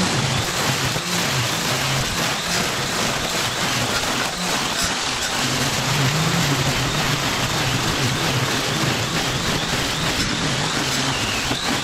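Makita 18V×2 brushless battery powerhead with a string trimmer head running steadily, its line slashing through tall, overgrown grass: a constant motor hum under a dense hiss of cut grass.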